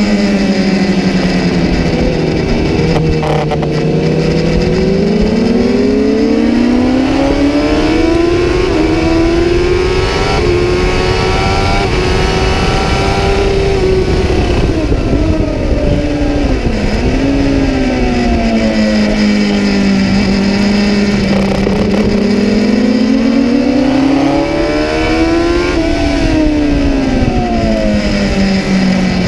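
Kawasaki ZX-10R's inline-four engine heard on board at racing speed, under steady wind noise. The revs drop at first, climb steadily to a high peak about halfway as the bike runs up to fifth gear with the shift lights on, then fall with a few quick dips and blips as it brakes and shifts down. The revs climb again and fall near the end.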